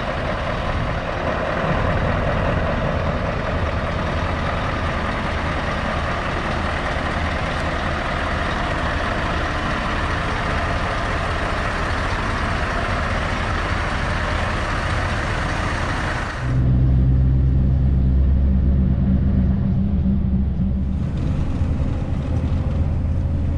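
Scania S650 V8 lorry: a steady broad running noise while it stands. About 16 seconds in, this changes suddenly to a louder, deep, steady engine drone as it drives along the road.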